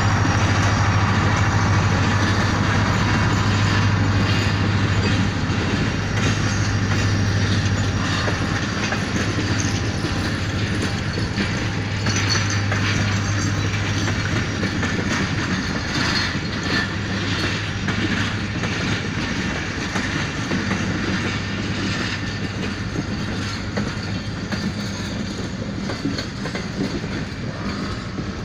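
Diesel-hauled passenger train passing close by: the locomotive's engine drone dies away over the first several seconds as it pulls off, leaving the coaches' wheels clacking steadily over the rail joints, slowly getting quieter.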